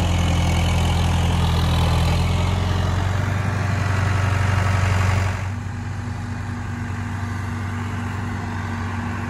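McCormick C70 tractor's diesel engine running steadily; about five seconds in it turns quieter.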